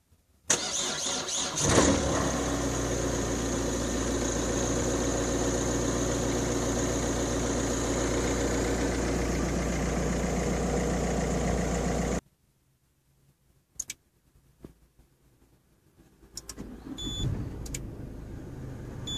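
A car engine is cranked by its starter for about a second, catches, and settles into a steady idle after a remote start from the SMS alarm system. The engine sound cuts off abruptly after about twelve seconds. A few clicks follow, then two short high beeps over a rising background noise near the end.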